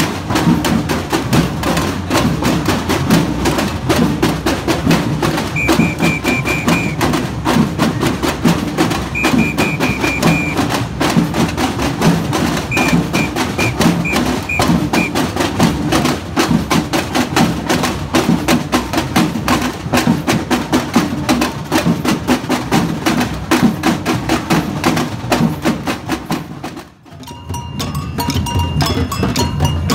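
Samba batucada band percussion: surdo bass drums, snare drums and repiniques playing a dense, driving rhythm. Three high piping calls sound over it in the middle, the last broken into five short notes. Near the end the rhythm breaks off briefly and comes back as a different passage with ringing bell-like tones.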